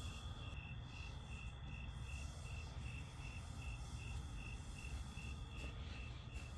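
A cricket chirping in a steady rhythm, about three evenly spaced chirps a second at one pitch, over a steady low rumble.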